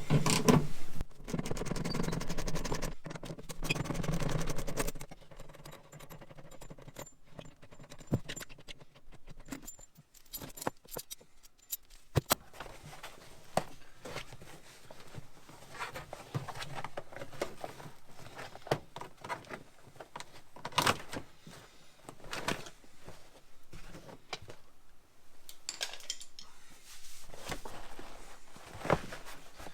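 Metal hand tools and loose bolts clinking and rattling, with scattered sharp clicks, knocks and rustling, as seatbelt bracket bolts are worked off with a 14 mm socket. It is busier for the first few seconds, then comes in separate clicks and taps.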